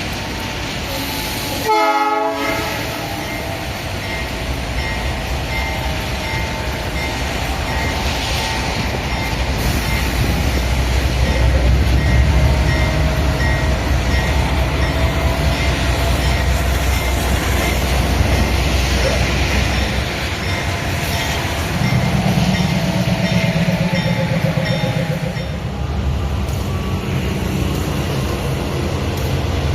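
Freight train led by a GE C44-9WM (Dash-9) diesel-electric locomotive running, with a steady low rumble and faint wavering whining tones over it. A brief burst of noise about two seconds in.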